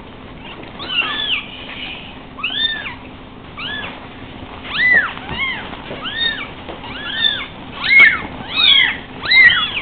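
Three-week-old Savannah kittens mewing: a string of short, high-pitched cries that each rise and fall in pitch, sparse at first, then faster and louder from about halfway, with some cries overlapping.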